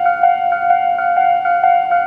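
Japanese railway level-crossing alarms ringing their standard electronic bell sound: two bells out of step, giving a fast, steady ding-ding of about four strikes a second. The sound warns that a train is approaching the crossing.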